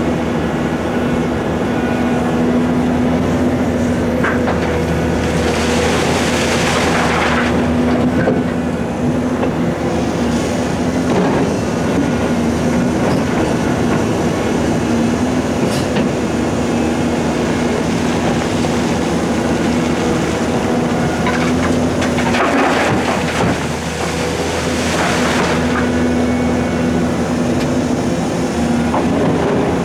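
Heavy diesel earthmoving machinery running steadily at the quarry face, with two louder, noisy stretches: one about six seconds in and another around twenty-three seconds in.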